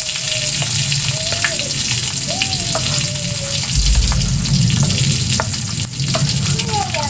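Pestle grinding and scraping chillies, shallots, salt and shrimp paste in a cobek mortar to make sambal terasi: a steady gritty scraping dotted with small sharp knocks of the pestle against the mortar.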